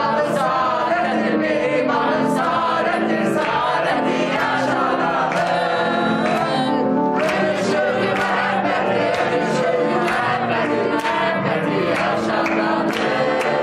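A group of young voices singing a song together in chorus, with hand claps along.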